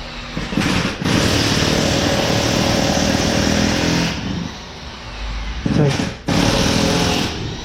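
Impact wrench running on the brake caliper bolts, a long rattling burst of about three seconds with a brief break, then a shorter burst near the end.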